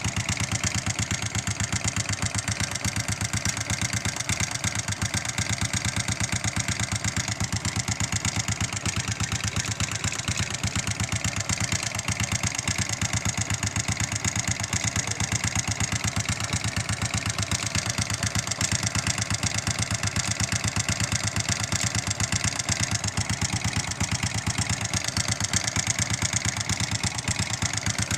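Honda XRM 125 motorcycle's small single-cylinder four-stroke engine idling steadily, with the knocking noise its owner is showing.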